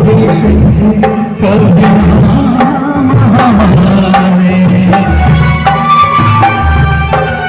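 Live band music played loud through a PA sound system: a male singer over keyboard, drum kit and Indian hand drums, with heavy, pulsing bass.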